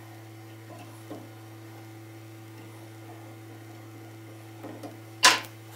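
Steady electrical hum, with faint scrapes and clicks of a threading die in its holder being turned onto a metal rod held in a vise. A single sharp knock comes near the end.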